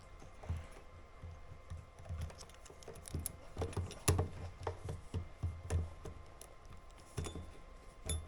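Irregular small clicks and taps, several a second, of the plastic and metal parts of a motorcycle fuel pump assembly being handled and fitted together by hand. The loudest click comes about halfway through.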